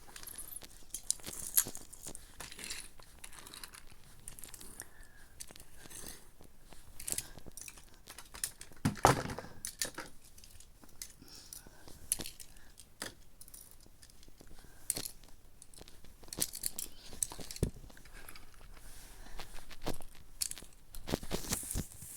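Irregular rustling, crinkling and light clicks of small objects being handled, with a louder knock about nine seconds in.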